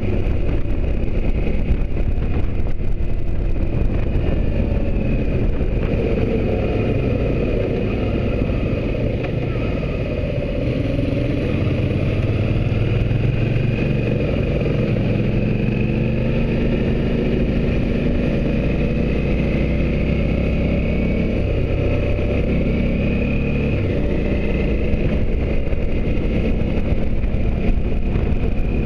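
Motorcycle engine running at road speed with steady wind noise over the windshield; the engine eases off briefly around ten seconds in, then pulls steadily again.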